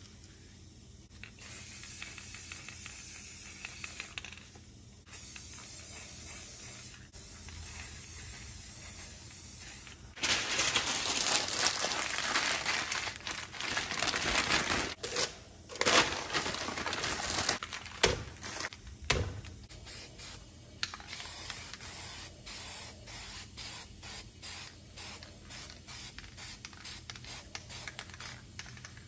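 Aerosol spray paint cans hissing onto poster board in steady sprays of a few seconds each. Around the middle comes a louder stretch of rustling and scraping, and toward the end the spray comes in many short puffs in quick succession.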